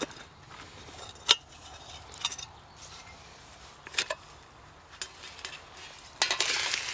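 Zebra stainless-steel billy pot and its wire-tied lid clinking as they are undone and lifted: a handful of separate sharp clinks. Near the end a sizzling hiss starts as the freshly roasted chicken slides out of the hot pot onto a metal plate.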